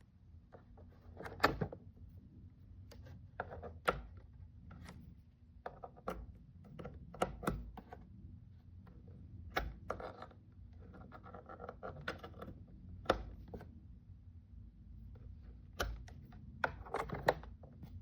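Irregular clicks and knocks, a dozen or so at uneven gaps, over a low steady hum.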